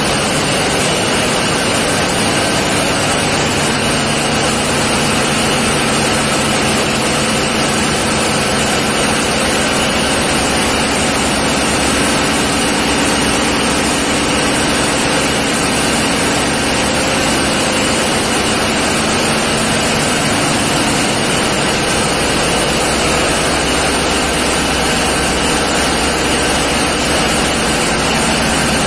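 Steady, loud running of a tugboat's marine diesel engines, an even mechanical din with a low hum, echoing in the enclosed engine room.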